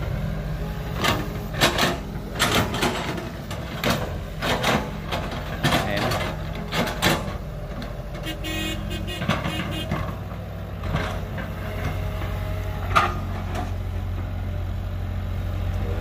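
Sumitomo S265 hydraulic excavators' diesel engines running steadily under load while digging wet mud, with a run of clanks and knocks from the bucket and boom through the first half and one sharp clank near the end.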